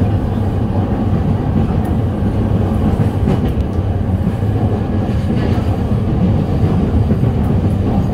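Interior running noise of a JR East E217 series EMU, heard from inside the passenger cabin of a motor car. It is a loud, steady rumble of wheels on rail as the train runs along.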